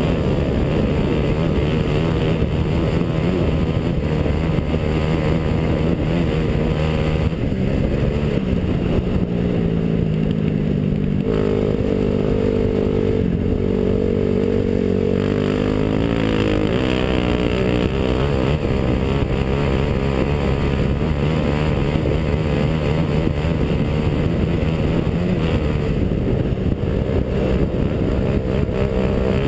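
Dirt bike engine running under way. The engine note climbs about a quarter of the way in, holds higher for several seconds, then falls back and runs steady.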